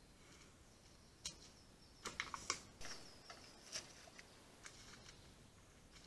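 A bear rummaging at a metal bait barrel: a scattering of sharp clicks and knocks, with a quick cluster about two seconds in, over a quiet forest background.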